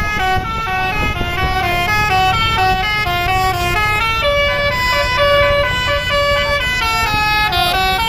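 Basuri multi-tone musical air horn ("telolet") on a Mercedes-Benz OH 1626 coach playing a quick stepping melody of several notes at once, over the low rumble of the bus.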